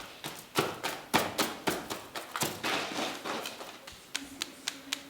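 An irregular run of sharp taps and knocks, several a second, louder in the first half and thinning out toward the end.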